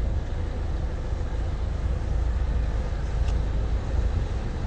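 Steady low rumble of a car's engine and road noise, heard from inside the cabin while the car is driven, with a faint steady hum over it.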